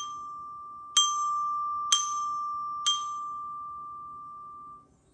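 Student bell kit (glockenspiel) struck four times on its D bar with a mallet, evenly at about one stroke a second, each note ringing at the same pitch; the last one rings on for about two seconds before dying away.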